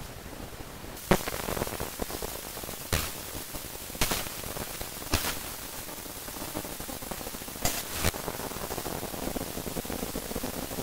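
Steady hiss like static that swells in about a second in, broken by six sharp cracks or pops at uneven gaps of one to two and a half seconds.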